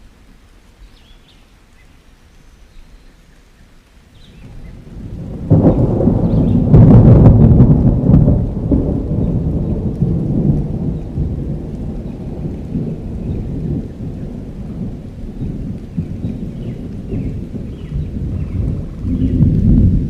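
Thunder: a sudden low rumble breaks in about five seconds in, peaks a second or two later, then rolls on and swells again near the end.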